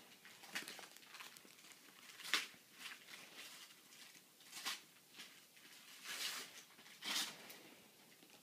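Wrapping paper rustling and tearing in a series of short, faint bursts as a present is unwrapped by hand.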